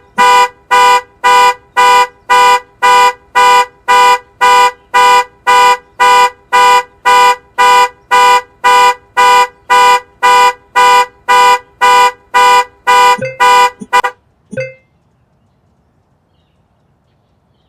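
Vehicle horn sounded by a panic alarm, honking in even rapid pulses at a little over two a second. Near the end it breaks off with a few uneven short honks and stops.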